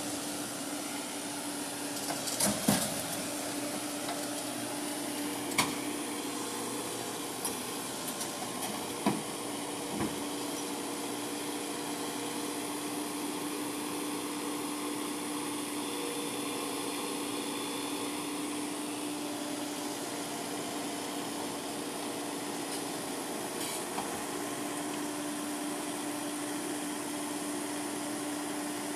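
Heavy diesel engine running steadily with an even hum, from the truck or the excavator it carries. A few sharp knocks come in the first ten seconds.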